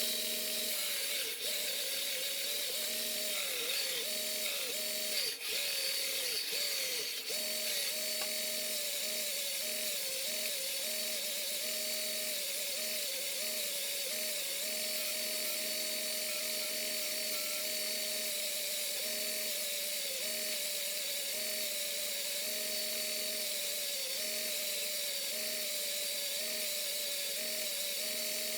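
An electric power tool running steadily with a dense hiss, its pitch dipping and recovering several times in the first few seconds as it takes load.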